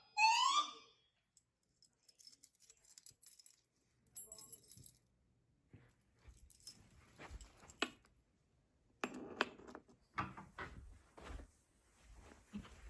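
A voice-evacuation fire alarm's rising whoop tone ends within the first second. Then it goes quiet apart from scattered light clicks, rattles and knocks, which come thicker from about nine seconds in.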